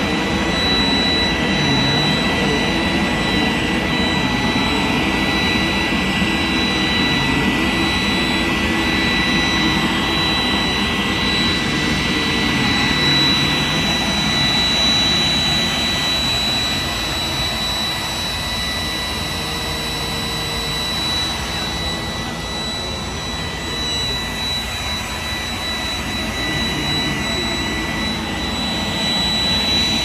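iRobot Roomba 980 robot vacuum running on carpet: a steady motor and brush noise with a constant high whine, a little quieter in the second half. It is running normally, with its brushes freshly cleaned.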